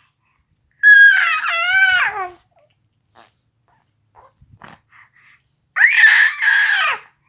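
A baby girl letting out two loud, high-pitched squealing screams, the first about a second in and the second near the end, each wavering and falling in pitch as it ends. Only faint small noises come between them.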